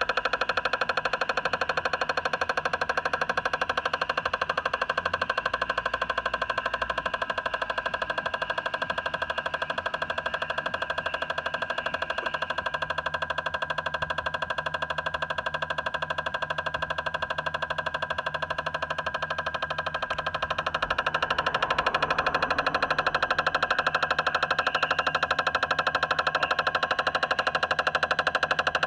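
Renault Clio 1.2 turbo petrol engine running steadily with a fast, even pulsing and some held tones over it, getting a little louder about 21 seconds in. The engine has a misfire on cylinder 1 that the mechanic could not trace to a mechanical or ignition fault.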